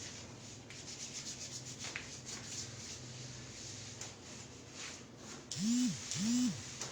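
Hands rubbing and kneading a patient's body during a massage and bone-setting treatment: a soft, uneven rubbing sound. Near the end come two short, louder pitched sounds, each rising then falling.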